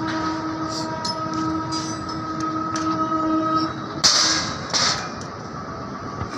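Steady mechanical drone with several held tones over a rumble, which fades out a little past halfway, followed by two short bursts of hiss.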